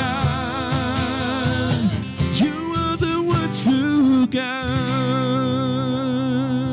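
Worship band ending a song: voices singing with vibrato over acoustic guitar and keyboard. About four seconds in, the singing stops and the final chord is held, beginning to fade.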